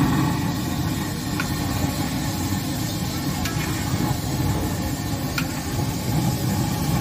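Potato pakoras deep-frying in a large wok of hot oil: a steady bubbling hiss over a continuous low rumble. Three light clicks of the metal skimmer against the pan come about a second and a half, three and a half, and five and a half seconds in.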